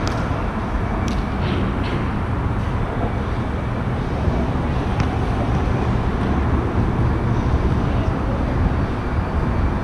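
Steady low rumble of traffic on the elevated roadway overhead, with a few brief sharp knocks near the start and one about five seconds in.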